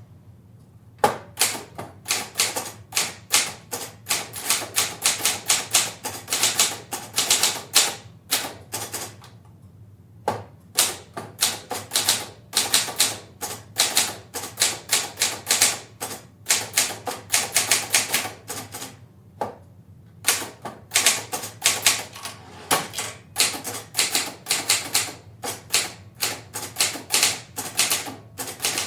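Portable manual typewriter typed at a medium pace, heard from a distance: runs of quick key strikes, several a second, broken by a few short pauses.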